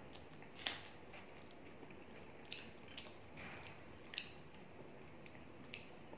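Hand mixing rice and chicken curry on a plate, with soft wet squishing and about six sharp clicks and smacks, the loudest one under a second in.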